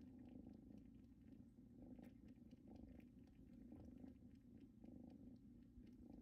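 Faint, steady purring of Bengal kittens, a low fluttering rumble with soft little ticks over it.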